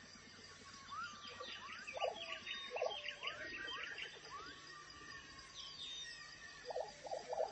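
Wild birds calling: many short rising chirps and bursts of rapid chattering, busiest from about one to four seconds in and again near the end.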